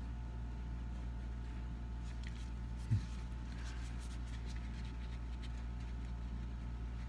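Steady low electrical hum of room tone, with faint scattered light ticks and one dull low bump about three seconds in.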